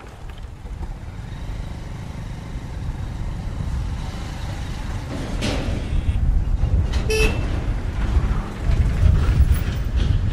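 Motorcycle running at low speed over a rough dirt trail, its engine and wind noise rumbling on the microphone and growing louder in the second half. A short horn toot sounds about seven seconds in.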